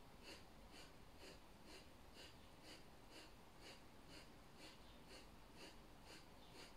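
Kapalabhati breathing: short, forceful exhalations pushed out through the nose in a steady rhythm of about two a second, faint.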